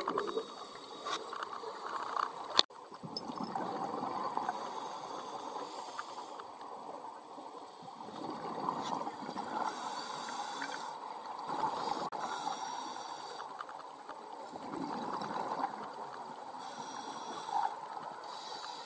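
A scuba diver breathing through a regulator, heard through the camera housing underwater: a hiss on each inhalation every few seconds, alternating with the low bubbling of exhaled air. There is a sharp click a few seconds in.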